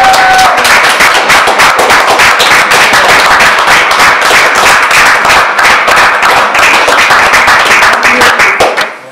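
Audience applauding: dense, loud, steady clapping that stops fairly suddenly near the end.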